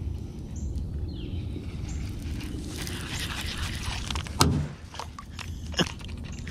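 Cast with a baitcasting reel: the spool whirs as line pays out for a second or two, then a sharp loud click as the spool is stopped and the reel engaged, followed by a few lighter clicks of the reel. A steady low rumble runs underneath.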